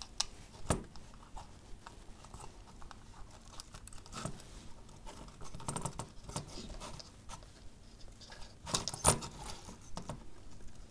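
Small handling noises of fingers working wires and a soldering iron while desoldering and pulling off an old ground wire: irregular light clicks and scratching, with a sharper click about a second in and a louder pair of clicks near the end.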